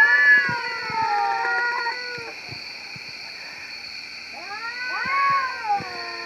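Male domestic cats caterwauling: long, wavering yowls, one sliding down in pitch and fading out about two seconds in, another rising and falling from about four seconds in. The owner takes this for territorial behaviour between the tomcats.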